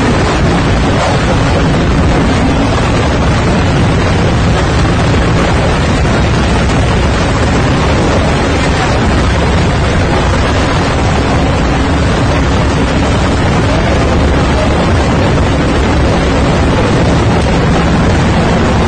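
Steady, loud rushing noise with a low hum beneath it, unbroken and unchanging throughout, like wind buffeting the microphone.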